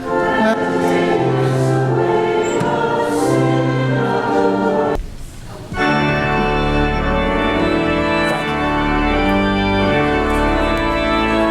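Church organ playing a hymn with voices singing along. The music breaks off briefly about five seconds in, then the organ comes back in with sustained chords over a deep pedal bass.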